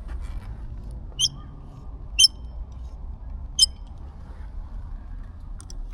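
A short, sharp, high-pitched squeak from the motorcycle, repeating three times about a second apart over a low steady rumble: the whistling metallic squeak heard when the bike starts moving.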